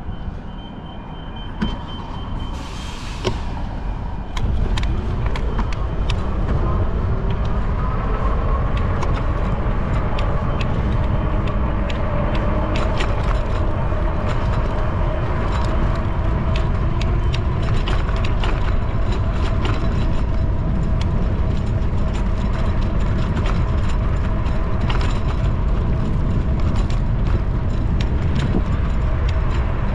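Riding noise picked up by a bicycle-mounted camera. After a quieter start with a thin high tone, the bike sets off about four and a half seconds in, and a loud, steady low rumble of wind and road noise takes over. Frequent small clicks and rattles and a faint hum that rises slowly run through it.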